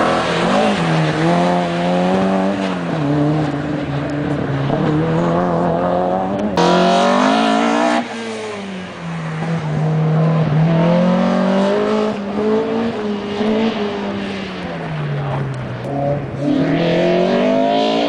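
Opel Kadett C's engine revving hard through a cone slalom, its pitch climbing and dropping again and again with throttle lifts and gear changes. The sound jumps abruptly about six and a half seconds in.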